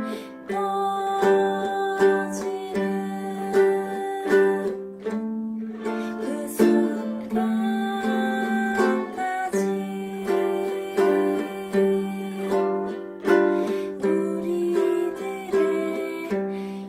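Ukulele played alone with no voice, chords plucked and strummed in a steady, even rhythm.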